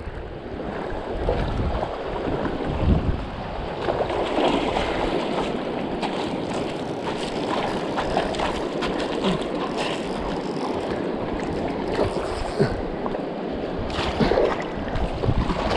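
Shallow mountain stream rushing steadily over rocks and gravel, with wind buffeting the microphone in the first few seconds.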